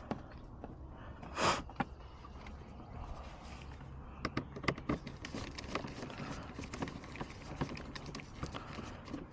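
Light clicks and knocks of hand tools and car-door parts being handled as an exterior door handle is worked loose, with one short, louder rasping noise about one and a half seconds in.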